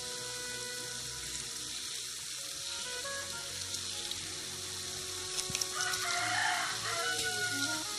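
Jilebi batter sizzling as it is piped in spirals into hot oil for deep-frying. A rooster crows about six seconds in.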